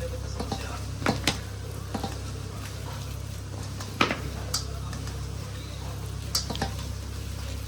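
Spinach and gram-flour pakora batter being mixed in a bowl, with scattered sharp clicks and knocks against the bowl over a steady low hum.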